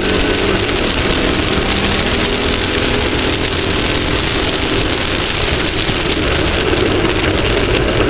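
Off-road race vehicle's engine running steadily at speed under a loud, even rush of wind and terrain noise on the onboard microphone.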